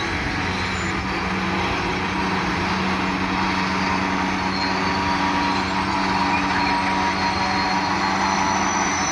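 Loaded coal train moving: diesel locomotive engines running with a steady hum under the rolling noise of the train, slowly growing louder.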